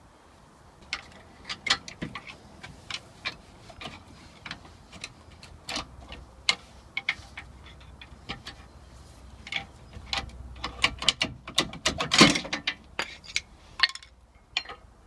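Irregular metallic clicks and clinks of a hand ratchet and socket working on the rear brake caliper bracket bolts, in uneven runs that grow busier in the second half, with one louder metal knock about twelve seconds in.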